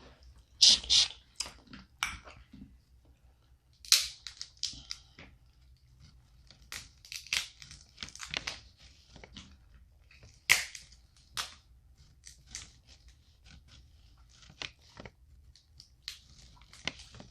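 Snow crab leg shells cracking and crunching as they are broken open, an irregular string of sharp cracks with smaller crackles between them.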